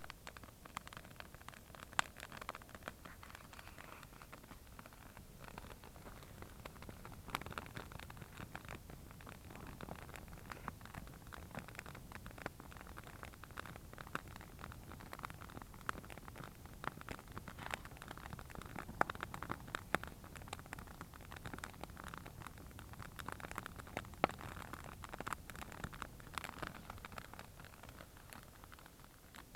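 Wood campfire crackling, with many irregular sharp pops over a steady low hiss.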